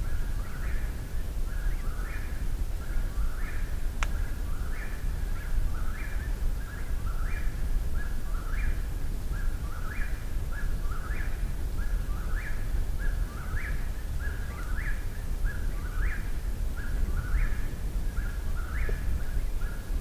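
Eastern whip-poor-will singing close by, its short phrase ending in an upward sweep and repeated over and over, a little more than once a second. A single sharp click about four seconds in.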